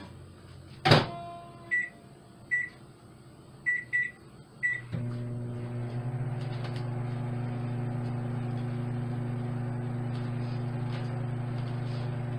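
Microwave oven being started: a loud clack about a second in, five short keypad beeps as the time is set, then the oven starts running with a steady low hum.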